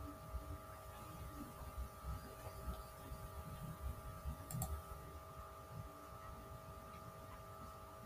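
Faint room tone with a steady electrical hum and low rumble, and a single mouse click about four and a half seconds in.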